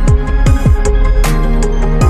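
Electronic background music with a deep kick drum beat, cymbal hits and a sustained bass line.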